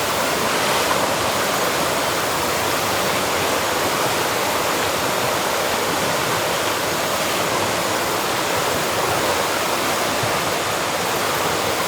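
Bear Creek running over small rapids: a steady, even rush of moving water.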